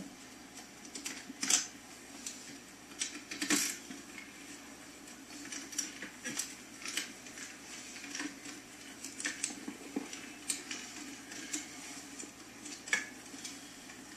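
A nut driver working 7 mm bolts out of the dash: irregular light metallic clicks and clinks, with a few sharper ones about a second and a half, three and a half and thirteen seconds in.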